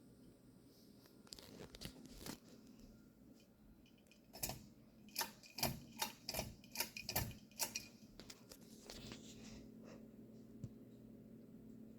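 A run of sharp clicks or taps, about two a second, over a faint steady low hum.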